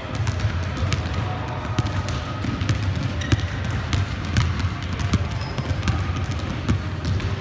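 Gym court noise: children's running footsteps and basketballs bouncing on a hardwood floor, many scattered sharp taps over a steady low rumble.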